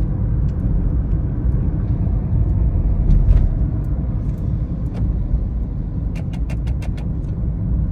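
Steady low rumble of a car on the move, heard from inside its cabin. About six seconds in comes a quick run of sharp clicks.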